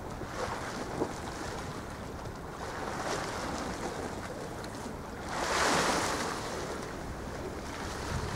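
Choppy sea water washing at the shore with wind buffeting the microphone: a steady rush, with one louder surge about five seconds in that lasts around a second.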